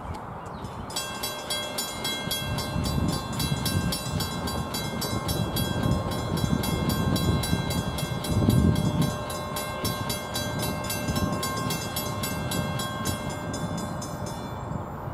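Railroad grade-crossing warning bell ringing in a fast, even rhythm, which starts about a second in and stops near the end, signalling an approaching train. A low, uneven rumble runs beneath it.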